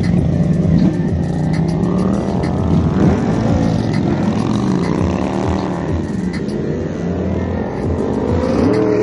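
Several superbike inline-four engines idling and being revved, the pitch rising and falling again and again as the bikes blip their throttles and pull away.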